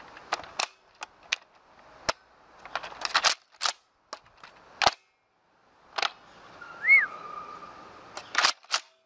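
Sharp plastic clicks and snaps of a Nerf Vortex FuseFire blaster being primed with its pullback and fired, some in quick clusters. About seven seconds in, a short chirp rises and falls in pitch.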